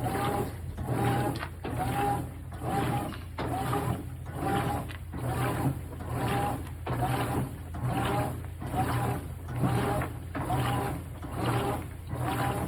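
GE top-load washing machine agitating a thick comforter in a full tub of water. The drive motor and agitator reverse back and forth in a steady rhythm of about one and a half strokes a second, each stroke with a short whine over a low hum.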